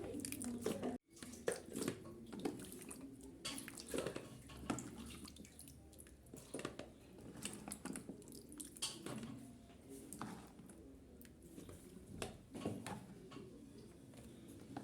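Wet, salted olives being scooped and dropped into a small container by hand, making irregular soft clicks, knocks and drips as it fills. There is a brief cut to silence about a second in.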